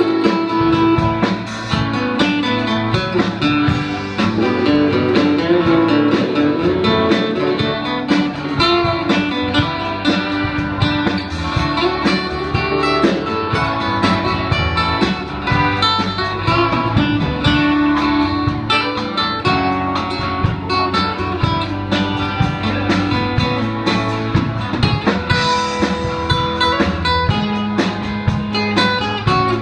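A live country band playing: guitars strummed and picked over electric bass and a drum kit.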